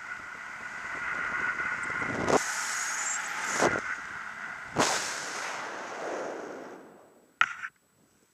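Wind rushing over a paraglider pilot's harness-mounted camera microphone during tight 360° turns, with a steady high whine underneath. Three hard blasts of wind buffet the microphone about two, three and a half and five seconds in, and then the wind noise fades out near the end, with a short click.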